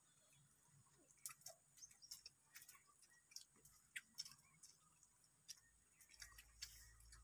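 Near silence, with faint scattered ticks and clicks.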